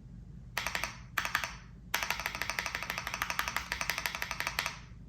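Mechanical keyboard spacebar on stacked stabilizers fitted with TX tabs, over AKKO Jelly Black switches and a PBT keycap, being pressed: a few single clacks, then a fast run of about eight to ten presses a second for nearly three seconds.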